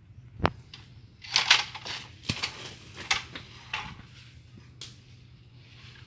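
Short, irregular bursts of dry rustling and crunching, with a sharp knock about half a second in, as a long bamboo picking pole is worked among papaya leaves and stems.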